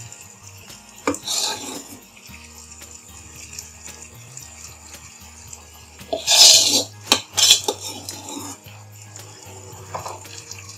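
Steel spoon knocking and scraping against a nonstick frying pan as thick masala is spooned over the brinjals: a knock with a short scrape about a second in, and louder scrapes and clinks around six to seven seconds in.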